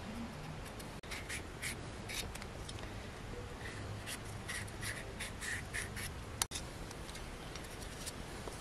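A cleaver blade scraping the skin off a daikon radish in a run of short, irregular strokes. A single sharp click about two-thirds of the way through.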